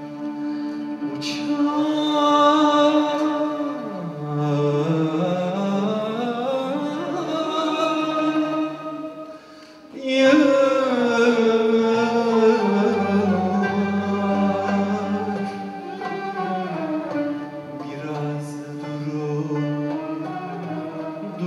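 Male solo voice singing a Turkish classical song in long, ornamented, gliding phrases, accompanied by a small traditional ensemble with ney and oud. About halfway through the voice breaks off briefly, then comes back in strongly.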